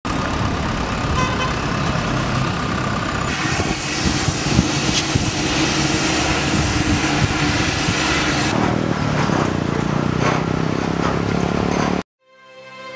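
Busy road traffic running steadily, vehicle engines and tyres passing, cutting off abruptly near the end.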